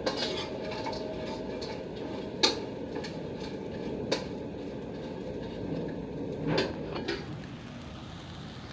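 Metal spoon stirring dried anchovies in a metal wok, scraping and clinking against the pan over a steady hiss, with sharp knocks about two and a half, four and six and a half seconds in.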